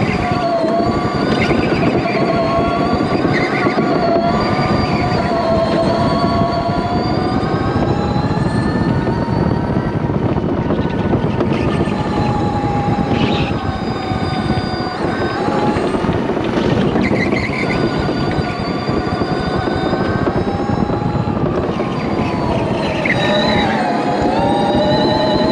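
Electric go-kart's motor whining, its pitch rising and falling as the kart speeds up and slows, over a steady rumble of tyres and chassis.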